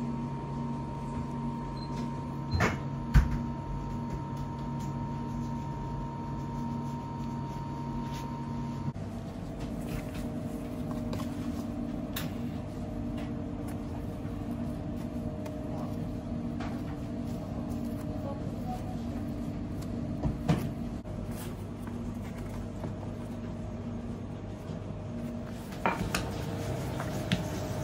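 Bakery kitchen background: a steady hum of kitchen equipment whose pitch changes about nine seconds in, with a few short knocks and clatter of trays and utensils, the loudest about three seconds in.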